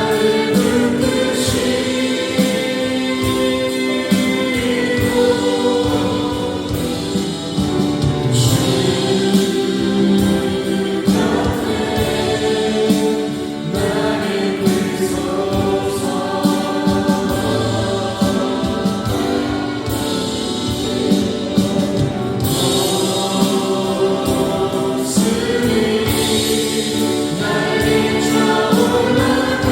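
Music: a choir singing held, layered lines over an accompaniment with a steady beat.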